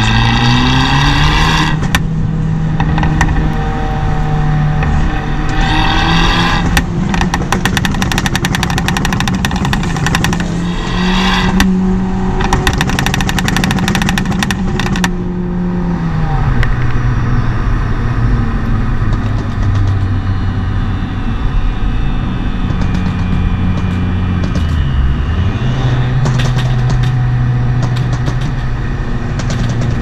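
Abarth 595 Turismo's tuned 1.4 turbo four-cylinder with an Akrapovic exhaust, running under way with its note rising and falling as it accelerates and eases off. Bursts of rapid exhaust crackling come through in the first half, and the engine pitch drops sharply about halfway through before climbing again near the end.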